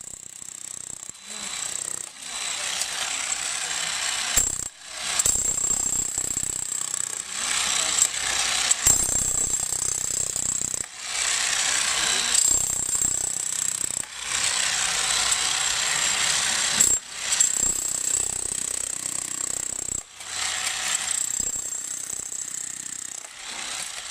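Corded electric demolition hammer chiseling into hard, dry ground. It runs in loud bursts of a few seconds each, stopping briefly between them.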